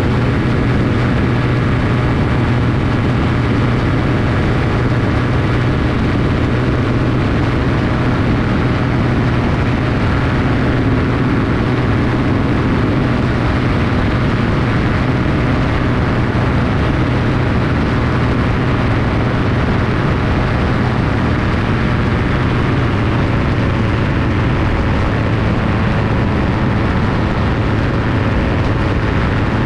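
Aerolite 103 ultralight's engine and propeller running steadily at cruise power in flight, an even, unbroken drone.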